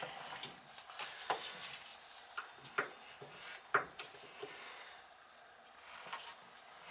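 Faint scattered clicks and light knocks of hands handling the laundry tub's old two-handle compression faucet, about eight over the first four seconds or so, then quiet.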